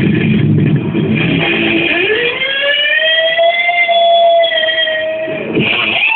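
Ibanez Saber electric guitar with a Floyd Rose-type tremolo, heavily distorted through a Boss Metal Zone pedal and Marshall AVT100 amp. Fast low riffing, then about two seconds in a single note is swept up in pitch with the tremolo bar and held for about three seconds. It drops away just before a new high note near the end.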